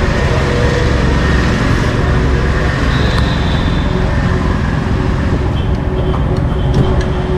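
Steady, loud low rumble of street and traffic noise, with a few faint light clicks near the end.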